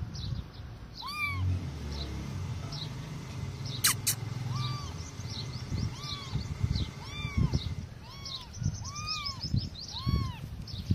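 Kittens mewing: short cries that rise and fall in pitch. There is one cry just after the start, then they come about once a second through the second half.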